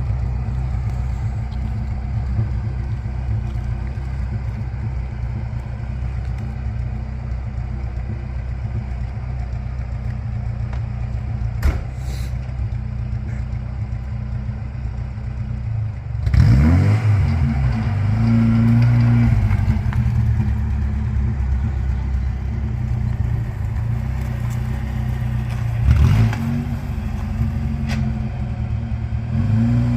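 Lada Niva engine running steadily under way, with a single sharp click about a third of the way in. A little past halfway the engine note swoops down and climbs again and the engine gets louder, as in a gear change and acceleration, with another brief surge near the end.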